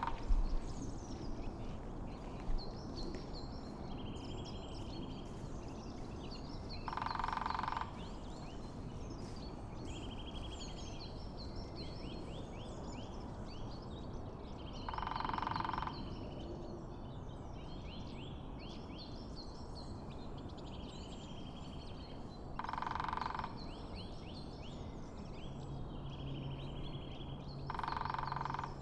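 Lesser spotted woodpecker drumming: four rolls of rapid bill strikes on wood, each about a second long, roughly eight seconds apart. Small songbirds sing between the rolls, and a faint low hum comes in near the end.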